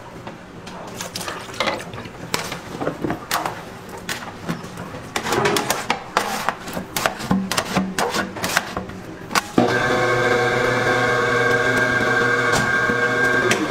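Food-processing machine working as mashed food is pushed out into a steel pot: irregular clattering and knocking, then about ten seconds in a loud steady motor hum that holds level until it cuts off near the end.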